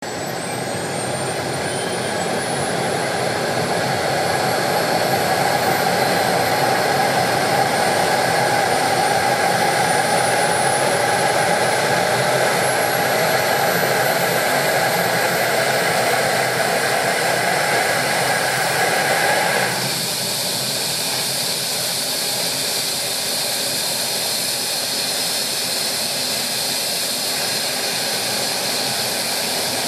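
Bell 427 helicopter's Pratt & Whitney PW207D turboshaft engine starting up: a steady turbine rush with a thin high whine that climbs steadily in pitch as the engine spools up. About two-thirds through, part of the rushing noise cuts off suddenly and the sound settles a little quieter.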